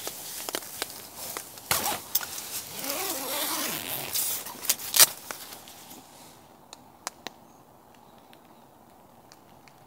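A zipper being pulled, with rustling and sharp clicks of handling; the loudest click comes about five seconds in. Then it goes quiet, with a few faint scattered ticks.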